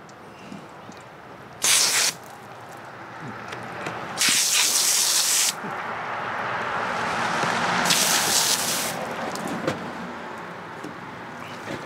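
Garden hose spray nozzle squeezed in three short bursts of hissing spray onto a halibut on a cutting board, the middle burst the longest. Between the bursts there is a softer, duller wash of water noise.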